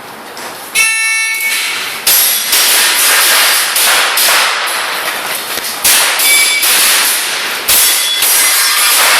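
An electronic shot timer's start beep about a second in, then loud, rapid strings of airsoft pistol shots that begin about two seconds in and restart several times as the shooter moves between targets.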